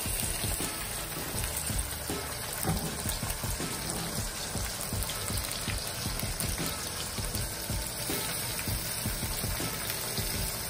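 Sliced onions and whole tomatoes sizzling in hot oil in a wok, a steady sizzle full of small crackling pops.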